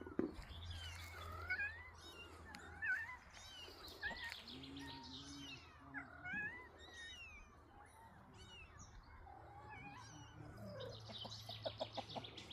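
Kitten mewing: a string of short, high cries that rise and fall, most of them in the first half.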